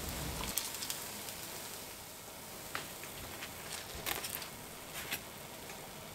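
Faint steady crackle of deep-frying oil, with a few light taps as chopsticks set a fried ganmodoki (tofu fritter) down on a paper-lined tray.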